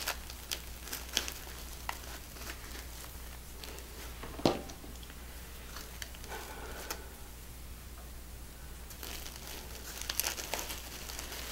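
Deco mesh crinkling and rustling under hands as chenille stems are pushed through it, with scattered small ticks, the sharpest about four and a half seconds in.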